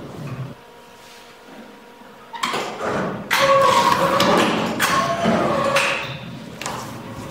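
A 460 mm program-controlled paper guillotine cutting a stack of paper. About two seconds in, the drive starts with a knock and a whine. For roughly three loud seconds the clamp and blade come down through the stack and return, with several clanks, before the machine drops back to a low hum.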